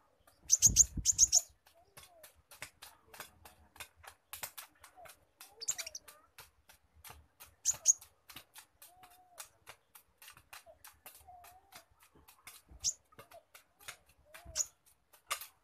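A caged konin, a sunbird, gives a long fast run of dry ticking chips, about five or six a second. This squirrel-like chatter is one of the calls the bird has copied from a squirrel. It is broken by a few sharp high notes and a louder burst of several strokes about a second in.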